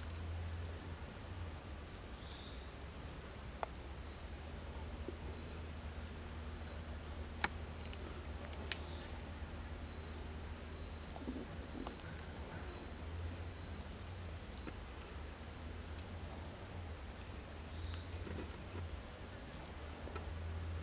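Insects trilling steadily in two high, unbroken tones, with a low hum underneath. A single sharp click sounds about seven seconds in.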